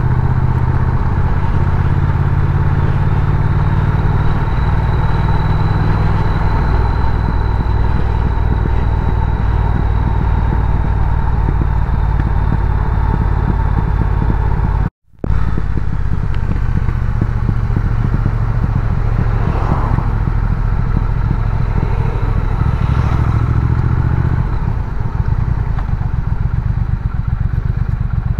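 Triumph Speed Twin's parallel-twin engine running steadily under way, heard from the bike. The sound cuts out for a moment about halfway through and resumes.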